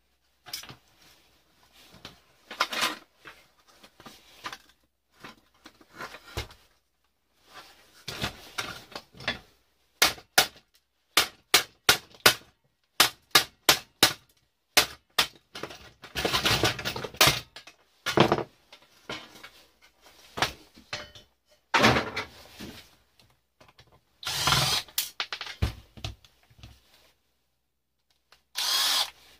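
A fuse box being taken apart by hand: plastic circuit breakers and metal parts prised and knocked off its steel backplate with a screwdriver. Irregular sharp clicks and knocks with rattling and scraping handling noise, including a quick run of about a dozen clicks in the middle.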